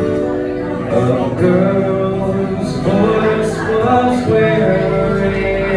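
A man singing an original song live with an acoustic guitar, his voice holding and gliding between notes over the strummed chords.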